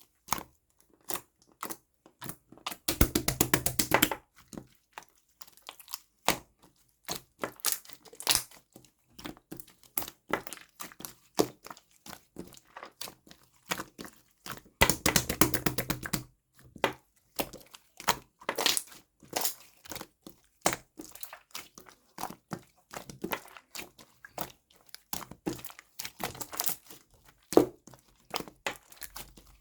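Jelly-textured glitter slime being squished and pressed by hand, giving a run of sticky clicks and small pops, with two dense bursts of rapid crackling, about three seconds in and again around fifteen seconds in.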